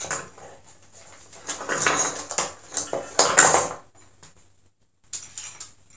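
Clinking and rattling of metal swing-top bottle-cap wire bails and stoppers against a plastic tray and a glass wine bottle as they are handled. The clatter is loudest in a busy stretch through the middle.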